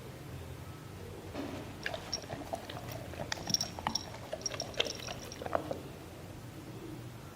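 A dog chewing and smacking on food: a quick run of small wet clicks and crunches between about one and a half and six seconds in, over a steady low hum.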